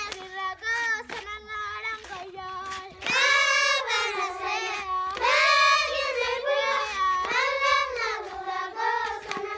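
A group of young Maasai girls singing together in high voices, the song growing louder about three seconds in.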